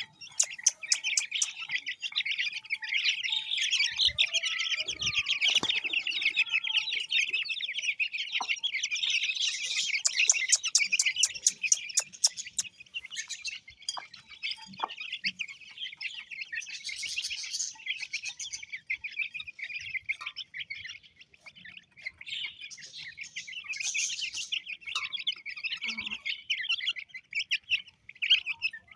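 A crowd of aseel chicken chicks peeping continuously, many high, shrill cheeps overlapping at once.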